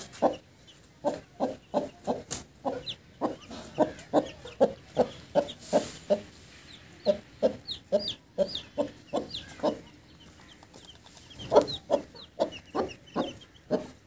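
An Aseel hen clucking steadily, about three short low clucks a second: the brooding call a mother hen uses to keep her chicks close. Her chicks peep over it in short, high chirps that fall in pitch. The clucking pauses briefly about ten seconds in, then resumes louder.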